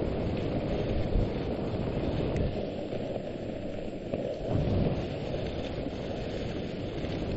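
Steady low rumble of a dog sled running over a packed snow trail, with wind buffeting the microphone. Two louder jolts, about a second in and about four and a half seconds in, as the sled bumps over the trail.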